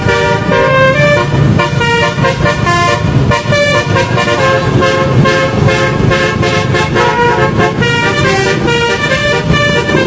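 Basuri telolet multi-tone bus horn playing a melody of quickly changing notes without a break, over the low running of the bus.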